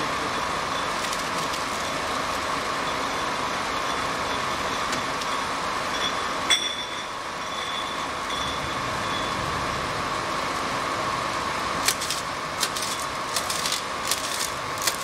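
Automatic shrink sleeve labeling machine running: a steady mechanical hum with a constant tone, one sharp click about six and a half seconds in, and a run of rapid clicks and knocks over the last few seconds.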